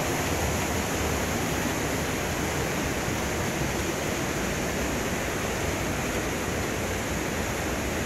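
Waterfall rushing steadily.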